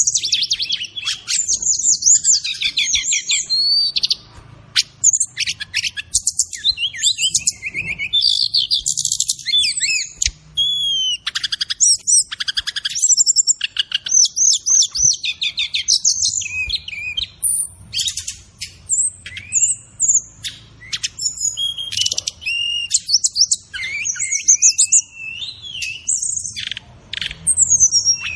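Brown-chested jungle flycatcher (SRDC, sikatan rimba dada coklat) singing a fast, varied run of high chirps, trills and whistled glides, broken by short pauses.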